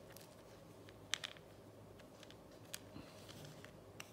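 Faint handling noise with a few light clicks, the sharpest about a second in, as small microphone parts are handled and set down on a hard work surface.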